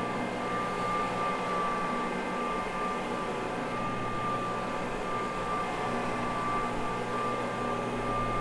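Carpet-cleaning floor machine running steadily with a soft brush, scrubbing solution into a wool rug: an even motor hum with a constant high whine.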